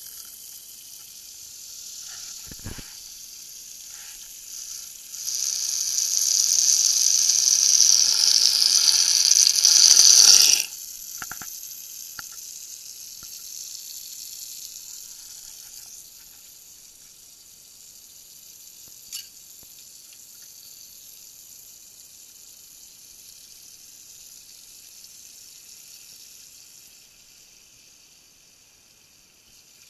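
Water from a kitchen tap running into a stainless steel sink, splashing on the drain and foaming up. A louder hiss from about five seconds in cuts off suddenly near ten seconds, leaving a softer hiss of trickling water that slowly fades.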